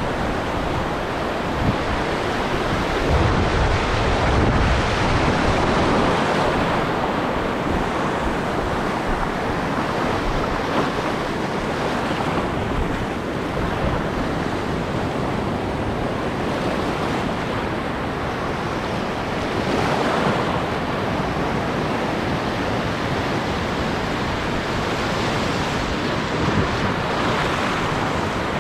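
Surf washing over a shallow reef edge, a steady rushing noise that swells and eases, with wind buffeting the action-camera microphone.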